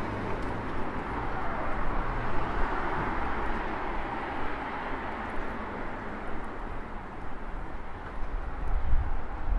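City street ambience: a steady wash of road traffic with cars driving past, over a low rumble that swells near the end.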